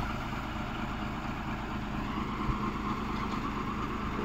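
Truck engine idling steadily at low revs.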